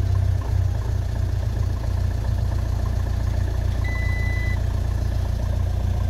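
2015 Peugeot Boxer's diesel engine idling steadily just after firing up, having overcome a no-crank, no-start fault once the emissions and fuel vaporizer circuit was isolated. A short, high dashboard beep sounds about four seconds in.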